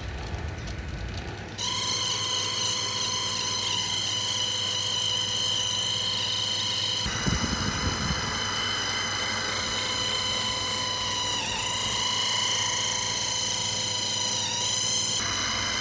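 Small electric fan motor starting up about a second and a half in, then running with a steady high whine. The pitch dips briefly twice in the later half.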